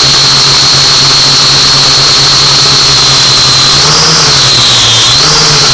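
A drone's motors and propellers running with a loud, steady whine over a low hum; the pitch rises and dips back twice, about four seconds in and again near the end, as the motors change speed.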